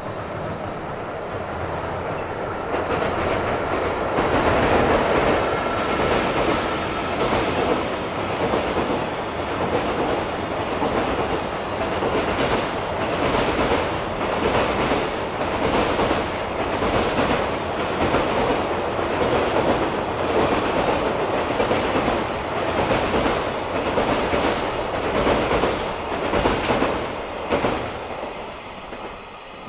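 Freight train of container wagons hauled by an EF65 electric locomotive passing, its wheels clattering over rail joints in a steady rhythm. The sound builds over the first few seconds and fades near the end.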